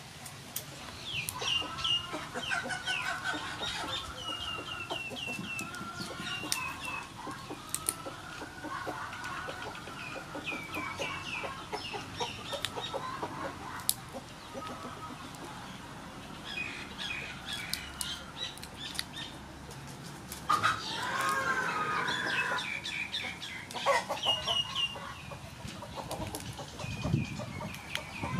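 Chickens clucking in the background, with runs of high, short chirps and a louder wavering call about two-thirds of the way through. Scattered sharp crackles of shell come from cooked mantis shrimp being peeled by hand.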